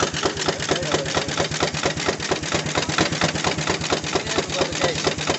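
13 horsepower Gaar-Scott steam traction engine running with a quick, even exhaust beat, about six a second, over a steady low hum.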